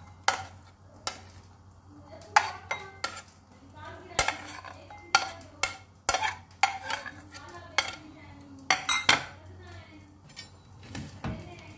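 A metal spoon clinking and scraping against a ceramic plate while chopped onion, garlic and ginger are handled: a string of sharp, uneven clinks, with a brighter ringing pair near the end, over a low steady hum.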